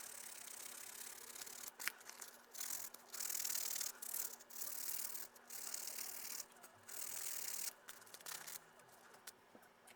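Slow, hand-worked rubbing strokes on a piece of azalea wood, roughly one stroke a second, fainter near the end.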